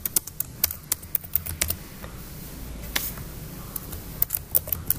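Computer keyboard typing: quick runs of keystrokes, with a pause and a single keystroke between them.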